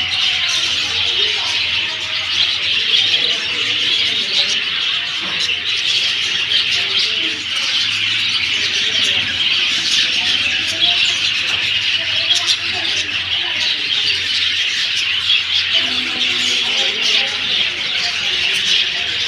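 A dense chorus of many birds chirping without a break, with scattered lower-pitched calls mixed in.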